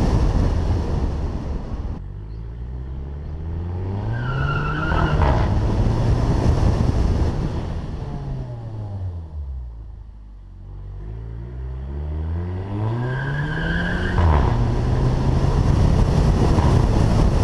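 Volkswagen Beetle (Fusca) 2.0 TSI turbocharged engine accelerating through the gears on its DSG gearbox. The revs climb, and at each upshift (about five seconds in and again near the end) the pitch drops with a short exhaust burp, the DSG upshift 'fart'. A brief high whistle comes just before each shift.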